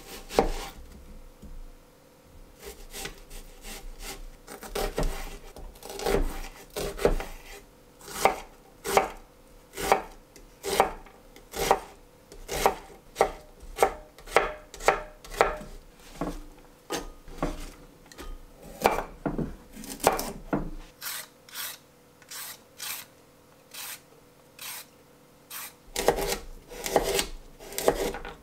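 Chef's knife chopping on a wooden cutting board: sharp knocks of the blade through a peeled onion onto the board, about one or two a second, with a short lull, then quicker strokes near the end as it starts slicing a carrot.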